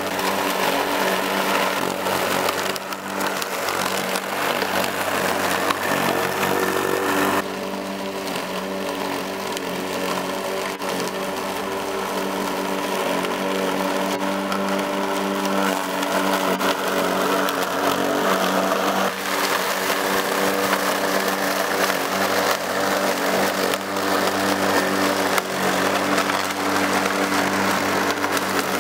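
Corded electric rotary lawn mower running steadily as it is pushed through long grass, a continuous motor hum with a steady whine. Its sound drops slightly in level and brightness about seven seconds in.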